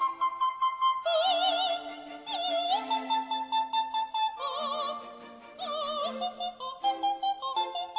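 Music: operatic singing, long held notes with a strong wavering vibrato, changing pitch every second or so.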